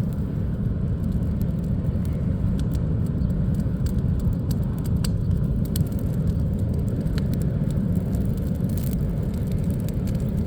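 Coal fire in a homemade pit furnace blown by a fan: a steady low rumble with scattered sharp crackles.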